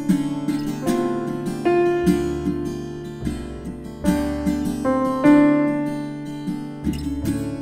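Background music carried by plucked acoustic guitar, notes struck in quick succession and fading.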